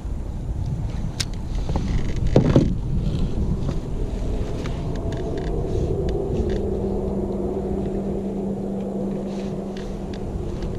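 Low rumble of wind on the microphone, with a click and then a louder knock about two and a half seconds in; from about four seconds a steady engine drone comes in and holds at one pitch.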